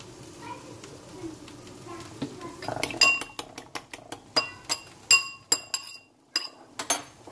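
A metal utensil clinking against cookware or a dish, a dozen or so sharp, ringing clinks at an uneven pace of about three a second, starting about three seconds in.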